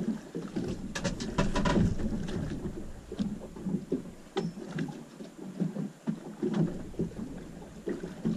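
Water slapping and knocking irregularly against the hull of a small drifting boat, with light wind hiss. A quick run of sharp clicks and knocks comes about a second in.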